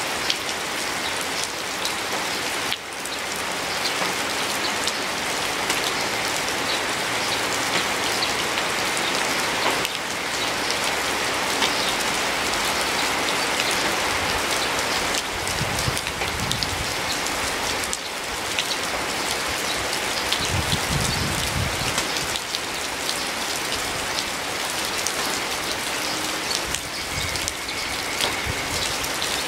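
Steady rain falling on a garden and dripping off a roof edge: a dense, even patter with many individual drop ticks. A short low rumble comes twice near the middle.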